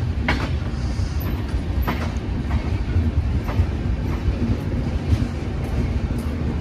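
Steady low rumble of a train, with scattered sharp clanks and knocks.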